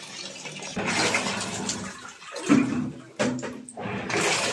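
Water pouring from the inlet of a Voltas fully automatic top-load washing machine into its drum, splashing onto the water already in the tub, during the machine's filling stage.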